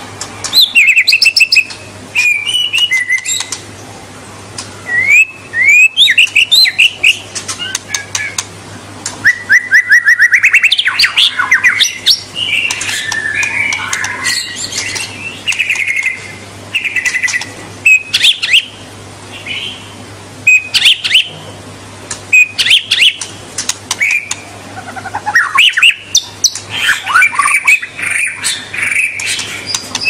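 White-rumped shama (murai batu) singing: a long, varied song of loud whistled phrases, fast trills and quick sweeping notes, delivered in bursts with short pauses between them.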